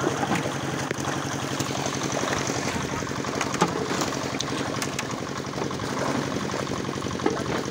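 Many fish thrashing and splashing in a net drawn tight in shallow water, with short sharp splashes over a constant wash. A small engine runs steadily underneath.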